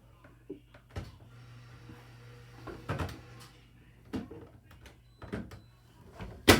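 Knocks and clicks of a fire alarm strobe's housing being pressed and fitted onto its mounting box, with a sharp, loud click near the end as it seats.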